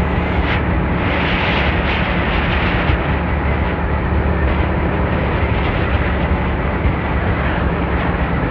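Motorcycle under way on the road: a steady, loud rush of wind and road noise over the engine running at an even speed.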